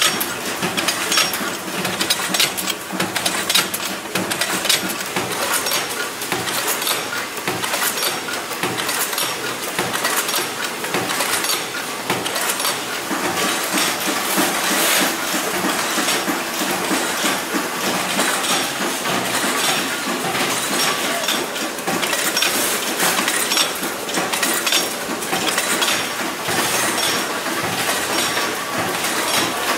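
Bolt-making machines running with a constant metallic clatter, as small steel bolts clink and rattle onto one another and into steel trays and chutes. The clicks come thick and fast throughout, with a steadier machine hum underneath from partway through.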